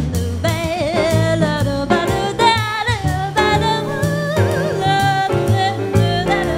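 Live jazz quintet: a woman sings the melody at the microphone over piano, walking double bass and drums.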